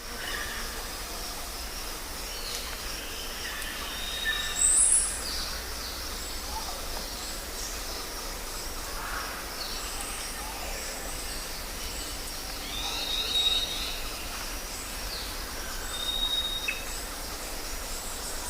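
Bird calls: many short, high chirps and whistles at irregular intervals, the loudest a rising whistle about five seconds in, over a steady low rumble.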